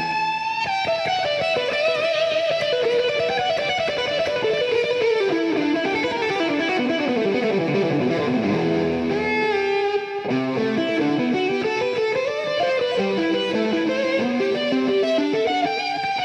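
Background music: electric guitar playing fast runs of notes that fall and rise in pitch.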